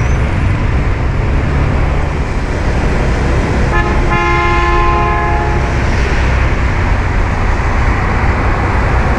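Busy street traffic heard from a moving scooter: a steady low rumble of engines and road noise. About four seconds in, a vehicle horn sounds one steady honk lasting about two seconds.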